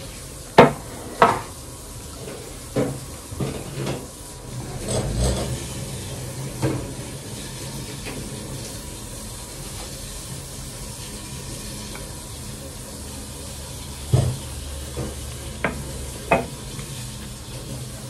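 Wooden chopsticks clicking and scraping against a ceramic rice bowl and small dishes during a meal: a scattering of sharp clicks, several in the first seven seconds and a few more near the end, over a steady low hum.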